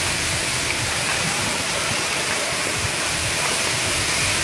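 Conifer hedge burning in full flame: a steady hiss with fine crackling.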